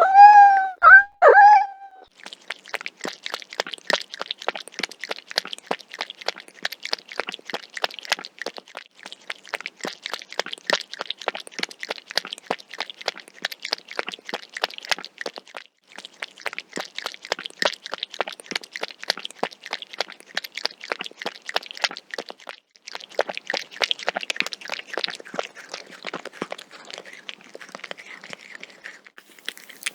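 A domestic cat meows twice, briefly, then laps liquid from a bowl: a long run of quick, wet tongue laps in a steady rhythm, with a short pause about halfway through.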